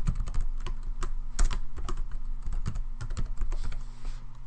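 Typing on a computer keyboard: a run of unevenly spaced keystroke clicks as a line of code is entered.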